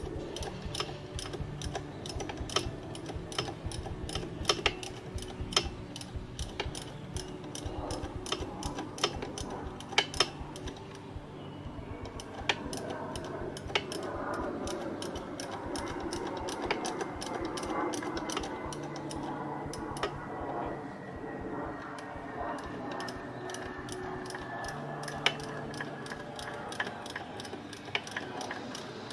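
Hand socket ratchet clicking in irregular runs as fasteners are turned, over soft background music with long held notes.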